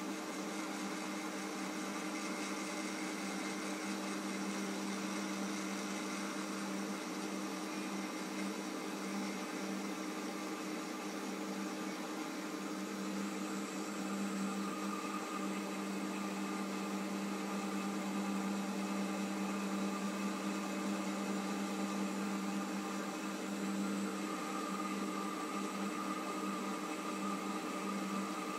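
Metal lathe running with a steady hum while a clamp-style knurling tool's wheels roll against the turning workpiece, knurling it.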